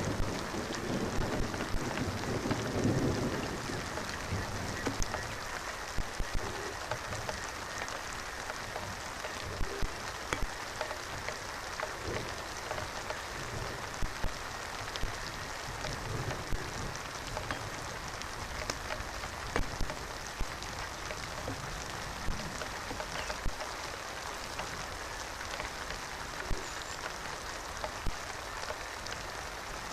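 Steady rain falling, with many sharp drop impacts ticking through it. A low rumble sits under the rain for the first few seconds.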